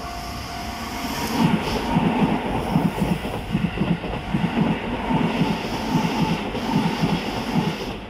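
Keikyu 1500-series electric train passing a level crossing without stopping, its wheels clacking in a quick regular rhythm over the rail joints. The crossing alarm's steady tone is drowned out about a second in as the train arrives.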